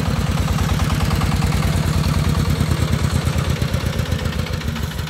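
Engine of a small three-wheeled công nông dump truck running as it drives slowly, a steady rapid low pulsing.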